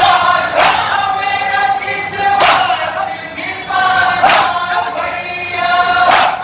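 A group of men chanting a nauha in unison through a PA, with the crowd's chest-beating (matam) striking together in a steady beat, one loud slap about every two seconds.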